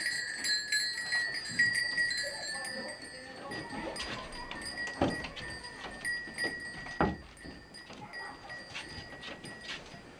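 Small metal bells jingling and ringing on, a steady shimmering high ring. Two sharp knocks come about five and seven seconds in.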